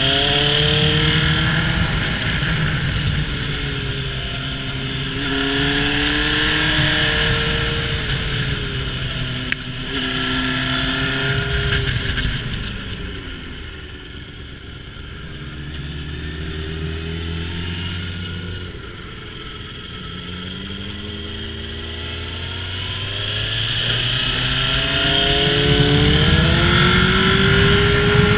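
Honda CBR954RR's inline-four engine heard from on board at track speed, revving up hard through the gears in a series of rising sweeps, with wind rush over the bike. It eases off to a lower, quieter note around the middle, then builds again through the gears near the end.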